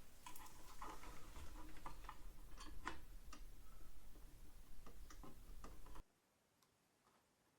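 Small irregular metallic clicks and scrapes of a screwdriver driving screws that fasten a single-board computer into its case. About six seconds in, the sound cuts off suddenly to near silence.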